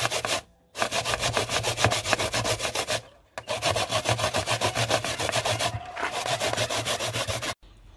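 Coconut being grated by hand on a metal box grater: fast, rhythmic rasping strokes. The strokes break off briefly about half a second in and again about three seconds in, then stop shortly before the end.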